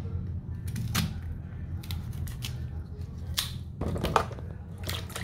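Small kitchen knife cutting through peeled cassava root onto a plastic cutting board: a string of sharp cuts and knocks. About four seconds in, cut pieces go into a basin of water with a splash. A steady low hum runs underneath.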